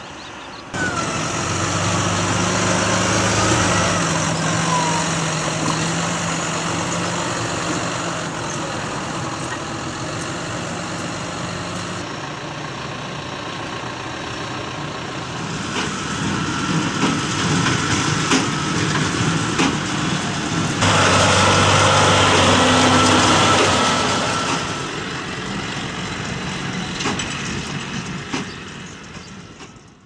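John Deere 6170R tractor's six-cylinder diesel engine running while pulling a New Holland BigBaler 1290 square baler. The sound comes in several spliced takes that change abruptly at each cut, and it fades out at the end.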